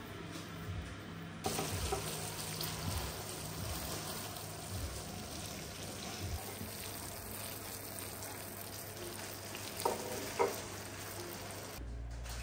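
Hot sugar syrup sizzling as a steady hiss while it is spread and worked with a spatula on a candy cooling table, over a low steady hum. There are two light knocks about ten seconds in.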